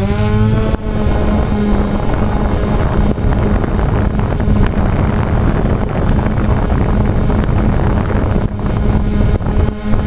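DJI Phantom quadcopter's motors and propellers running, heard from its onboard camera: a steady hum with a high whine, under a rough rushing noise. The pitch shifts about in the first second, then holds steady.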